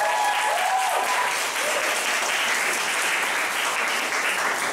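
Live audience applauding, with a few voices whooping in the first second or so.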